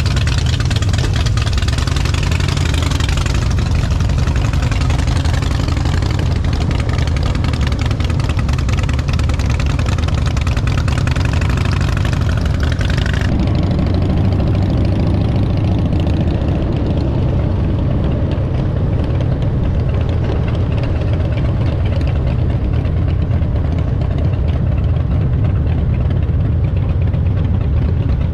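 Motorcycle engine idling with a steady low rumble; about halfway through, it gives way to the duller, steady sound of the bike running on the road.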